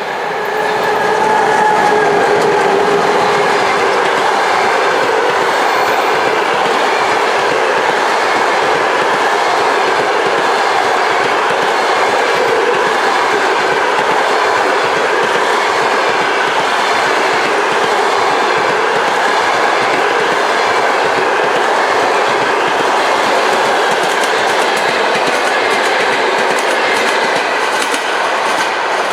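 Passenger train hauled by a ChS7 electric locomotive passing at speed: a steady rolling rumble of coaches with wheels clacking over the rail joints, getting louder about two seconds in and holding.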